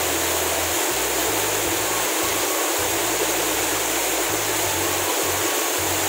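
A waterfall pouring down onto rock close by, a steady, even rush of falling water.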